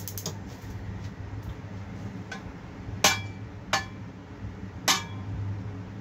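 Kitchenware being handled at the stove: a handful of sharp clinks and knocks from a metal frying pan, spatula and bowls, the loudest two about three and five seconds in, over a steady low hum.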